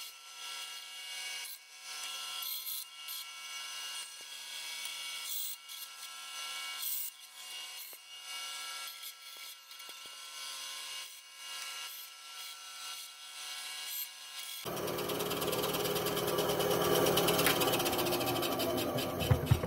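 Benchtop bandsaw cutting through pine, sawing off the holding tabs around a carved tray, its level rising and falling as the wood is fed. About fifteen seconds in, the sound changes abruptly to a louder, fuller steady noise.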